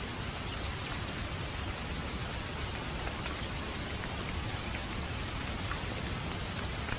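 Steady rain falling, an even hiss with scattered individual drop ticks over a low rumble.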